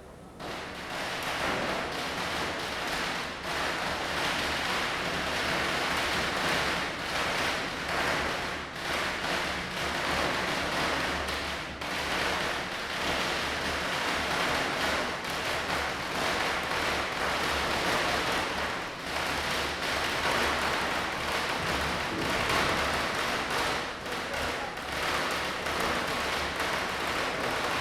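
Firecrackers going off in a dense, continuous crackle of rapid pops, like a long string of crackers bursting. It starts abruptly and keeps an even intensity throughout.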